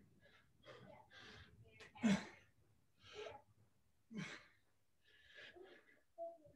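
A person breathing hard during exercise: sharp, breathy exhalations about every two seconds, the strongest about two seconds in, with softer breaths between.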